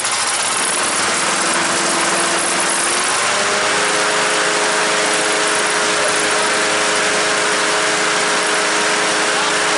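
Honda HRU216M1 mower's GXV160 engine running with the blade engaged. About three seconds in, its pitch steps up and then holds steady.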